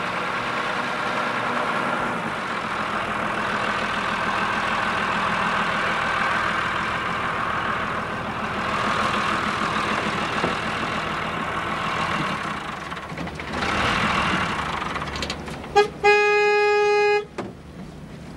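A delivery truck's engine running as it drives up, then its horn sounds near the end: a short toot, then a loud honk lasting about a second.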